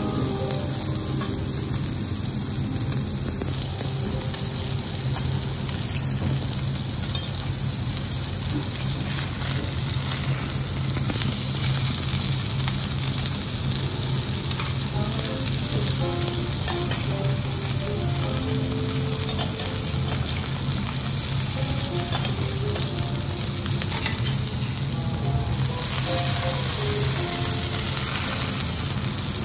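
Amadai (tilefish) fillet frying in oil on a steel teppanyaki griddle, a steady sizzle.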